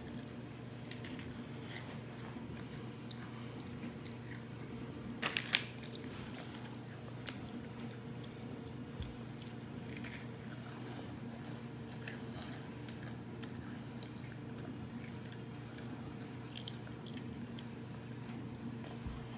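Faint crunching and chewing of a mini chocolate chip cookie, with scattered small clicks and one sharper crunch about five seconds in, over a steady low hum.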